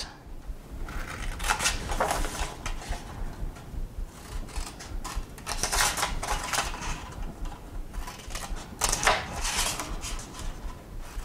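Scissors snipping short slits into a sheet of scored pattern paper: a series of quick, sharp snips in small clusters, with the paper rustling as it is handled between cuts.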